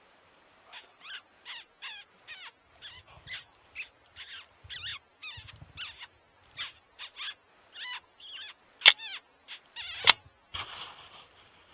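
Lip squeaking: a hunter's repeated short, high squeaks made with the lips to imitate a distressed mouse and call in a coyote, about two to three a second. Two sharp clicks near the end are the loudest sounds.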